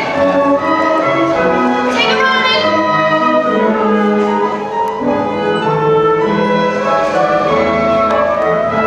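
Orchestral accompaniment playing the instrumental introduction of a musical-theatre song: slow, with long held notes and no voice.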